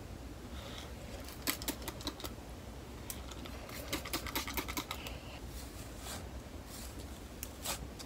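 Bristle hairbrush scratching through hair in short, quick strokes, in several runs, the fastest run of strokes about four seconds in.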